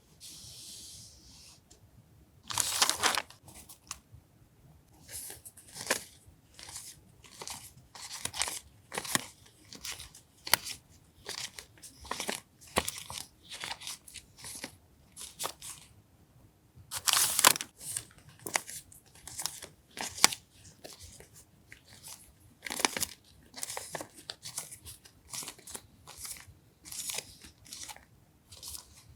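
Paper stationery and its packaging being handled and unpacked: irregular short rustles and crinkles, with longer, louder rustles about three seconds in and again around seventeen seconds.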